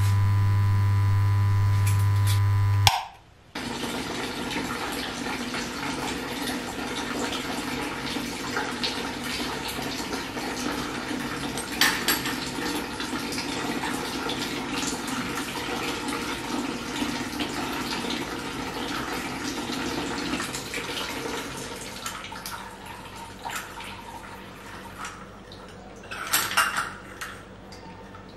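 A loud steady hum cuts off abruptly about three seconds in. Then water runs from a metal tap spout, with scattered small metallic clinks. The flow grows quieter over the last several seconds, and there is a brief clatter near the end.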